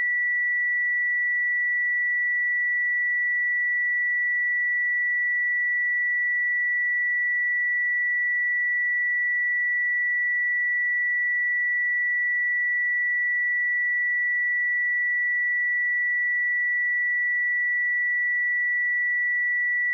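A pure 1954 Hz sine-wave test tone, held steady at one pitch and level with no other sound.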